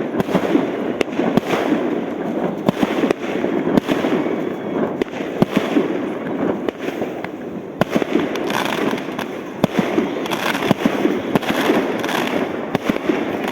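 Fireworks going off without a break: many sharp bangs of bursting aerial shells over a dense, steady crackle.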